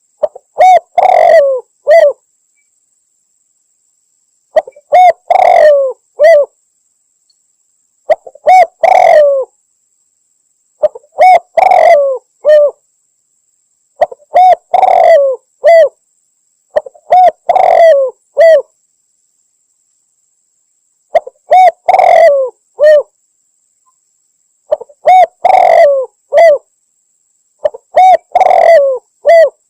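Spotted dove (tekukur) cooing: nine phrases of a few short coos each, about two seconds long, repeated every three to four seconds.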